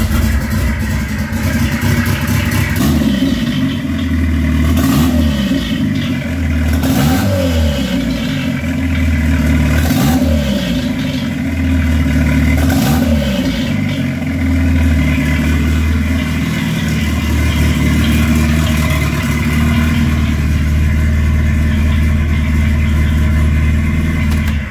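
Turbocharged Ford Escort four-cylinder engine, freshly rebuilt and on its first runs, blipped up and down in a series of short revs, then running steadily at idle.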